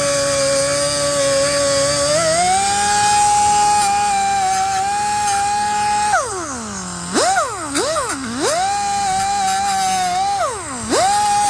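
Pneumatic cut-off tool whining at high speed, its pitch stepping up about two seconds in. From about six seconds in the pitch drops sharply and recovers four times as the tool loads up, cutting through stainless steel braided hose.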